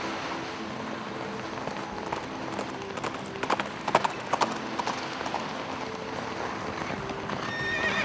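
Horses galloping on beach sand, their hoofbeats loudest in a quick run of thuds as they pass close, about three to four and a half seconds in. Near the end a horse starts to whinny.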